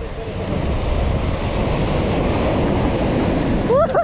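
Sea surf washing in, a steady rushing noise that slowly swells, with wind buffeting the microphone. A voice calls out near the end.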